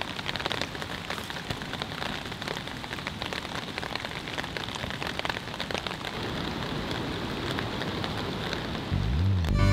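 Rain falling steadily, an even hiss full of fine drop ticks. Near the end, bowed-string music begins.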